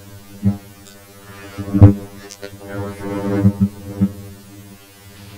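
Steady electrical buzzing hum, with a few brief clicks and thumps on top. The loudest comes about two seconds in.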